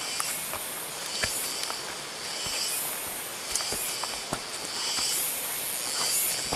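Footsteps on forest-floor leaf litter and the rustle of leaves and clothing pushing through dense undergrowth, over a steady high hiss, with a few sharper snaps of steps or twigs.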